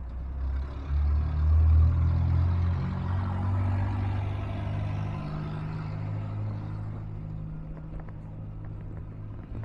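A vehicle rumbling, loudest about two seconds in, then easing to a steadier, lower run.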